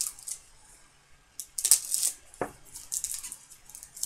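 Foil wrapper of a hockey card pack crinkling and tearing as it is ripped open by hand, in short irregular crackles that are loudest a little under two seconds in. A brief squeak falling in pitch follows just after the middle.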